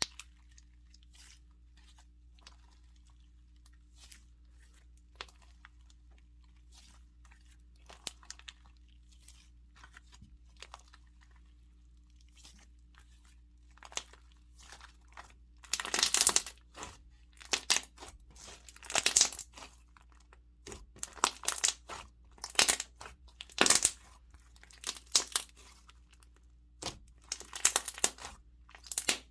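Slime being played with by hand. Small sticky clicks and pops at first, then, from about halfway through, repeated louder crackling, crunching squishes as it is pressed and stretched, typical of a foam-bead slime.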